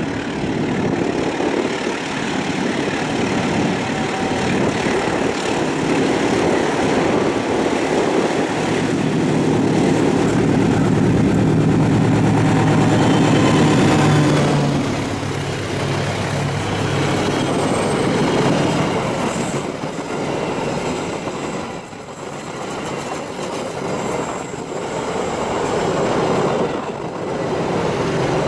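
Diesel-electric locomotive hauling a passenger train passes close by: its engine grows louder and peaks about halfway through, then the carriages roll past with a rhythmic clickety-clack of wheels over rail joints.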